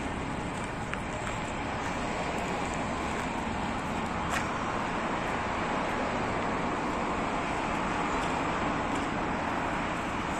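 Steady road traffic noise, an even rushing sound of cars on a road, with one faint click about four seconds in.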